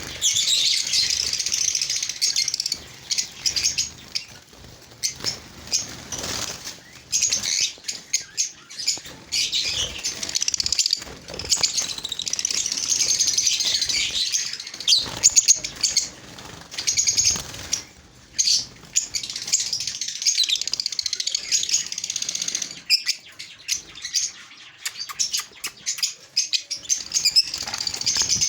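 A flock of small aviary birds chirping together in a dense, continuous high twittering, with frequent short wing flutters as birds fly about.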